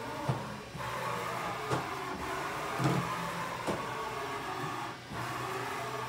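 2012 Haas VF-4SS vertical mill's table traversing under power: a steady mechanical whine from the axis drive, with a few sharp knocks along the way. The sound dips briefly about a second in and again near the end.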